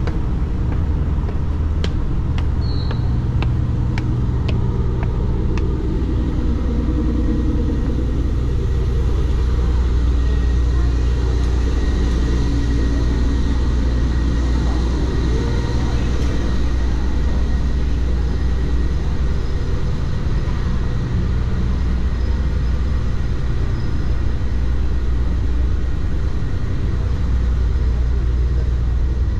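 Steady low engine rumble that does not change, with a few light clicks in the first several seconds.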